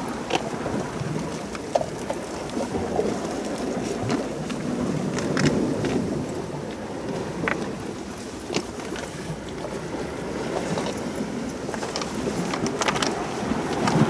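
Sea waves washing against a rocky shore, an ebbing and swelling wash of water noise with scattered small clicks and splashes.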